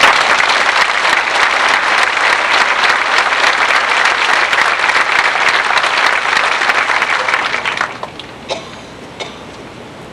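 Audience applauding, dense clapping that starts at once and stops about eight seconds in, leaving a few last claps.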